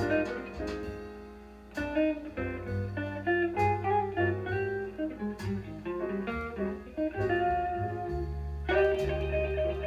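Jazz guitar record playing: picked guitar lines over a bass line, reproduced through a single-ended 2A3 tube amplifier and JBL studio monitor speakers.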